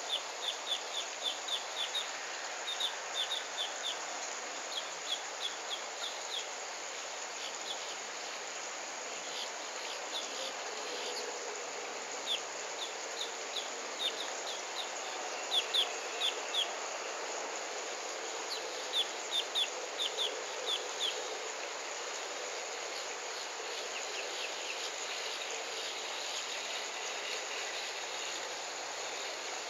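Small bird repeating a short, high chirp in quick runs of several notes, about four a second, with pauses between the runs, over a steady outdoor hiss.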